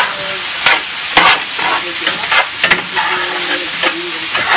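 Tenrec (tangue) meat and herbs sizzling as they fry in a large metal pot, stirred with quick scraping strokes about twice a second.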